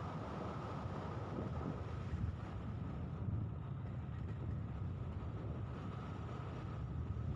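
An engine running steadily at an even pitch, with wind blowing over the microphone.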